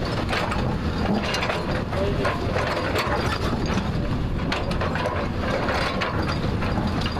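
JCB backhoe loader's diesel engine running steadily under load, with irregular clanks and knocks of the digging gear and bucket striking rock and soil.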